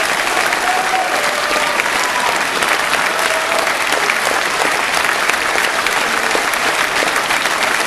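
Theatre audience applauding steadily in dense, continuous clapping, joined by the cast clapping on stage during the curtain call.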